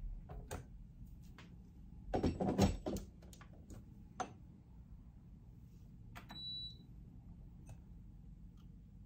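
Clatter and knocks of a small digital scale and a drinking glass being set on an espresso machine's drip tray, loudest about two to three seconds in. A short electronic beep sounds about six seconds in.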